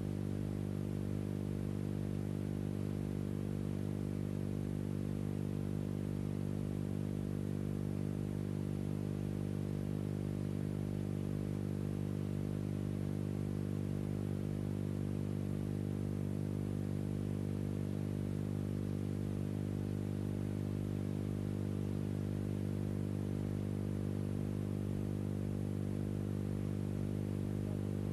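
Steady low electrical hum with many even overtones and nothing else over it, unchanging throughout: the hum of the soundtrack on a silent stretch of archival film.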